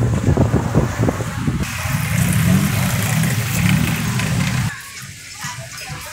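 Road traffic with vehicle engines running close by, a loud low hum that cuts off suddenly near the end to a much quieter background.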